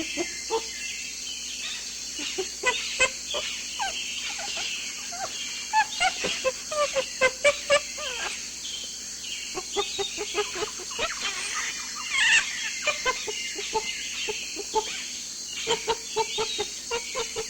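Birds calling: a busy run of short clucking notes mixed with higher chirps, thickest in the middle, over a steady high hiss.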